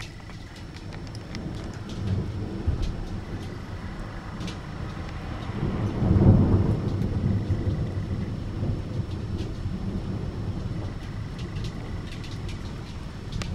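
Thunder rumbling: it builds about two seconds in, swells to its loudest rolling crash about six seconds in, then rumbles on and slowly fades.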